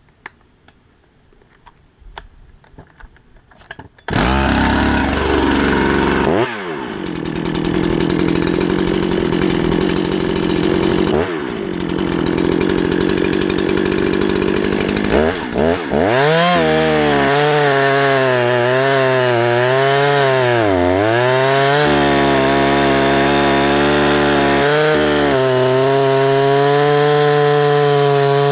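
Rebuilt Husqvarna 365 chainsaw, fitted with a 372 cylinder kit, restarted while already warm: a few clicks, then it fires and catches about four seconds in. It runs unevenly with a couple of short dips, then from about sixteen seconds in it is revved up and held at a steady high pitch, with one brief sag in revs partway through.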